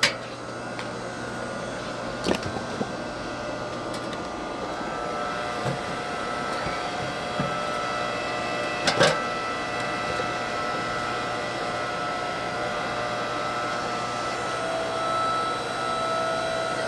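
Hydraulic log splitter running steadily with a motor-and-pump hum, with a few sharp cracks, the loudest about a third of the way in, as firewood splits.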